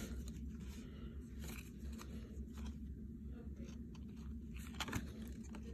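Collector's Choice baseball cards being handled: faint scrapes and light flicks as cards slide off a stack in the hands, a little under once a second, over a steady low hum.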